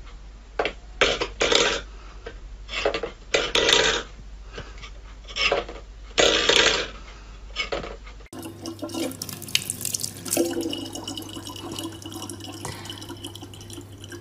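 A stainless steel bowl is pawed about on a wooden floor, giving a string of irregular metallic knocks and short scrapes. From about eight seconds in, a kitchen tap runs a thin steady stream of water into a plastic bottle.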